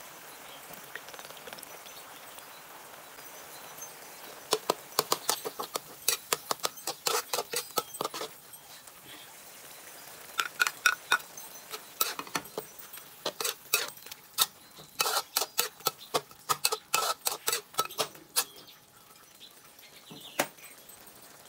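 Metal spatula clinking and scraping against a metal wok while stir-frying ground beef with chopped tomatoes. The strikes come in several quick runs, with a single strike near the end.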